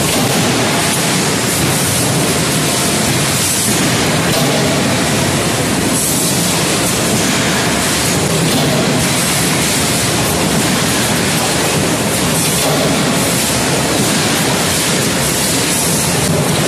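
Steady, loud din of forging-shop machinery: a constant noisy roar with no distinct hammer or press strikes standing out.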